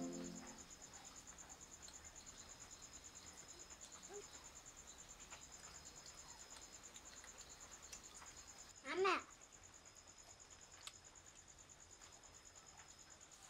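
Faint, steady, high-pitched trilling of crickets at night, with a child's brief vocal sound about nine seconds in.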